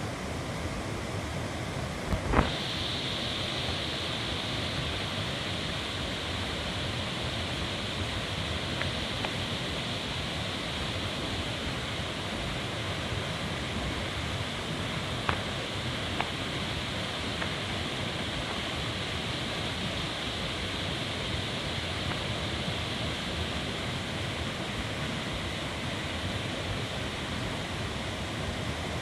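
Steady rushing water noise. About two seconds in, a sharp click is followed by a steady higher hiss that joins it and continues, with a couple of faint clicks later.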